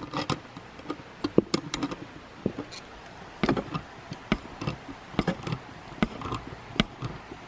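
Irregular metal clicks and taps as pliers grip and turn the nuts on a steel U-bolt antenna mount bracket, tightening it down, with small clusters of knocks now and then.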